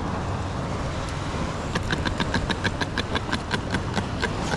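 A steady low rumble, with a quick run of about a dozen sharp, evenly spaced clicks, four or five a second, starting about two seconds in.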